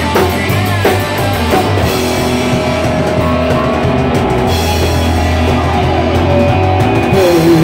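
Live rock band playing: electric bass guitar, drum kit and electric guitar, loud and steady.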